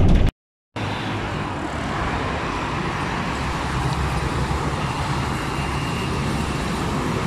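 Steady road traffic noise from cars, trucks and motorcycles on a busy multi-lane expressway, a continuous rumble and tyre hiss. It follows a sudden half-second dropout to silence just after the start.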